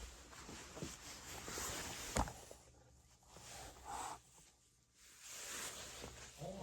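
Faint handling noises: light rustling and small knocks, with one sharp click a little over two seconds in and a near-silent stretch in the middle.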